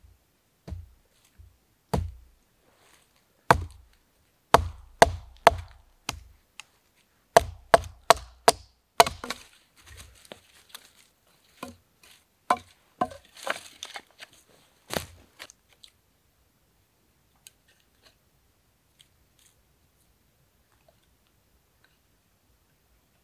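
A knife held upright on a log being batoned, struck again and again to split a stick: a run of irregular sharp wooden knocks, with scraping and rustling between the later strikes. After about fifteen seconds the knocking stops and only a few faint clicks remain.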